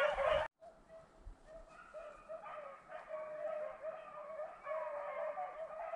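A brief loud rustle at the start cuts off abruptly. Then a pack of rabbit-hunting dogs bays faintly and keeps on, growing clearer from about two seconds in, as the hounds run a rabbit.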